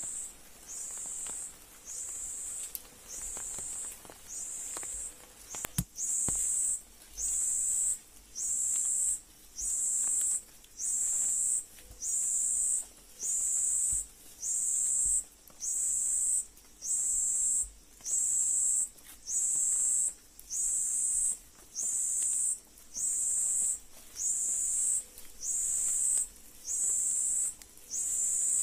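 An insect calling in a steady rhythm of very high-pitched buzzing pulses, each about half a second long, a little faster than one a second. A single sharp knock comes about six seconds in.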